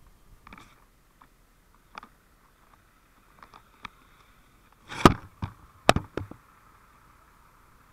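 Knocks and bumps on the camera itself: a few small clicks, then several sharp knocks and thumps about five to six seconds in, over a faint steady hiss.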